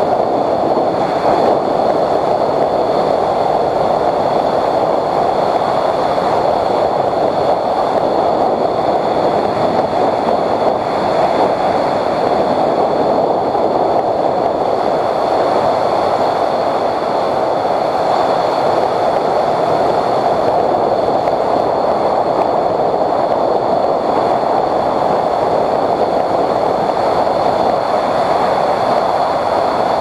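Motorcycle riding at speed heard through a bike-mounted action camera: a steady, dense rush of wind on the microphone mixed with engine and tyre noise, with a faint steady high whine over it.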